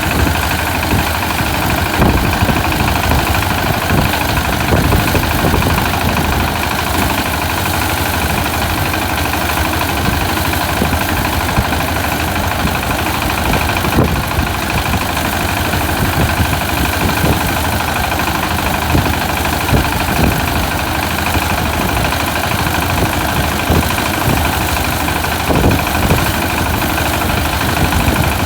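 Engine of a rice harvesting machine running steadily, with occasional short knocks.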